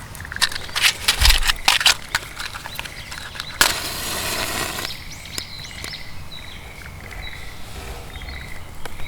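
A run of clicks and knocks, then a rush of hiss lasting about a second, after which birds chirp faintly.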